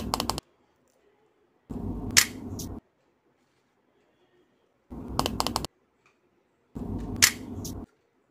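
Clicks and knocks of small plastic stationery pieces being handled and fitted into a tin pencil box, in four short bursts a second or two apart, each starting and stopping abruptly.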